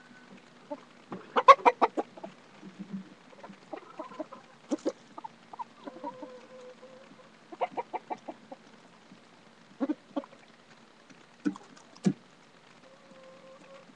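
Domestic hens clucking close by: a quick run of clucks about a second and a half in and another around eight seconds, with scattered single clucks and soft drawn-out notes between.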